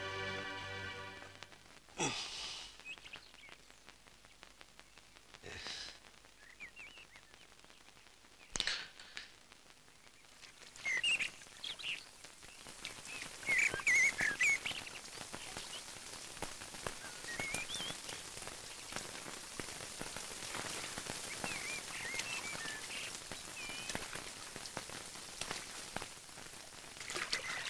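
Steady rain falling, with short bird chirps now and then. A few single sudden sounds come in the first ten seconds.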